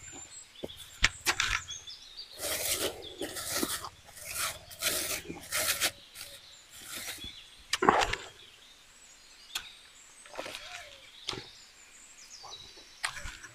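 Close-up eating sounds: a man chewing and crunching mouthfuls of red ants, with short smacking and crunching bursts that come quickly for a few seconds and then more sparsely, with a few sharp clicks.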